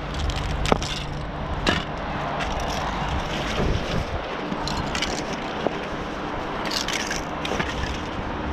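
Aerosol spray cans being handled and packed into a backpack: a few sharp clinks and knocks of metal cans, with rustling and scraping of the bag, over a steady background hum.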